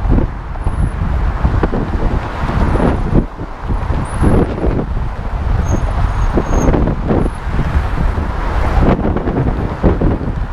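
Wind buffeting the microphone of a moving bicycle, mixed with steady car traffic on the adjacent roadway; the rumble surges unevenly as gusts and passing cars come and go.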